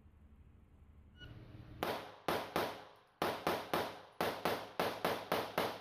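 Pistol fired rapidly, about a dozen sharp shots in quick strings of roughly four a second, each with a short fading tail.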